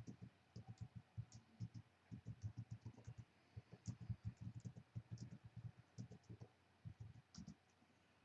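Faint computer-keyboard typing: quick, irregular key clicks in short runs.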